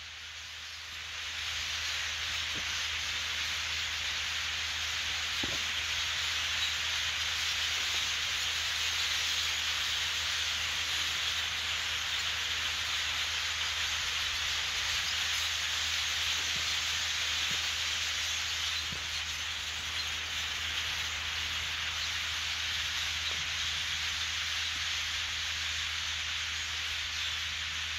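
A huge flock of red-winged blackbirds in flight overhead, thousands of calls and wingbeats blending into a steady rushing hiss that swells up over the first second or two. A low steady hum lies underneath.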